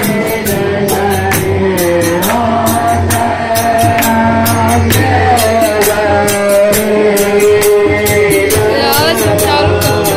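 Loud Hindu aarti hymn: a sung melody with long held, wavering notes over a steady percussion beat of about three or four sharp strikes a second.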